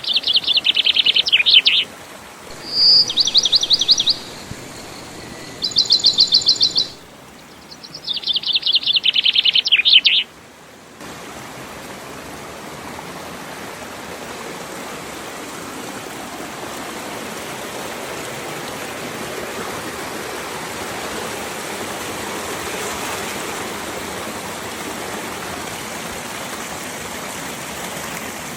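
A bird sings four short phrases of rapid repeated high notes over the first ten seconds. About eleven seconds in, the sound changes abruptly to the steady rushing of a waterfall, which grows a little louder toward the end.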